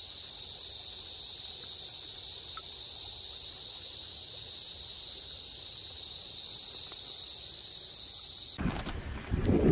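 Steady high-pitched chorus of insects chirring without a break. Near the end it cuts off abruptly, and louder knocks and a low rumble take over.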